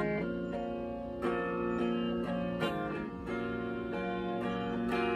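Semi-hollow-body electric guitar playing an instrumental passage of picked and strummed chords, the notes changing every second or so.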